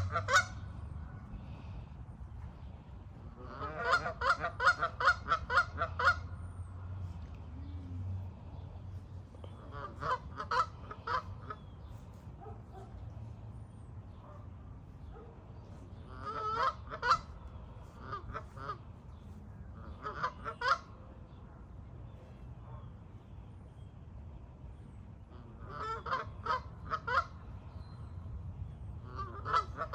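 Canada geese honking in bouts of short, quick-repeated honks separated by pauses of several seconds. The longest run of honks comes about four seconds in.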